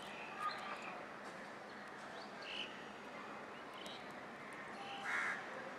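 Faint steady background hiss with a few short, high chirps and light clicks, the loudest a brief chirp about five seconds in.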